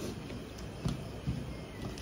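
Close-up eating sounds: chewing, and fingers mixing rice and greens on a steel plate, with two soft low thumps about a second in.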